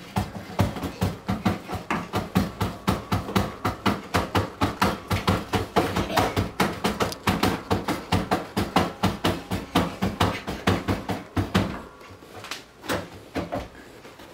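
Toilet paper being pulled off the roll in quick hand-over-hand yanks, about four a second, the paper rustling with each pull. Near the end the pulls thin out to a few separate ones.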